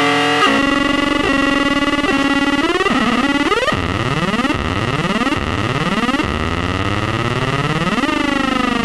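Teisco 110-F analog synthesizer making sound-effect noises. It plays a run of short stepped notes, then from about four seconds in a series of rising pitch swoops a little under a second apart. Near the end comes one long falling sweep.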